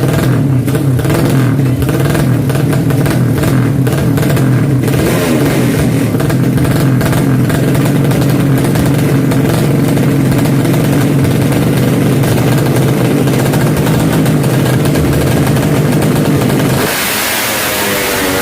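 Drag-racing motorcycle engine held at steady high revs, loud. About seventeen seconds in, the tone drops and changes pitch.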